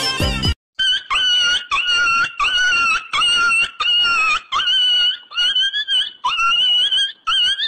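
A kitten meowing over and over: about a dozen short, high-pitched meows in quick succession, each rising sharply at its start. Music plays briefly at the very start and cuts off just before the meows begin.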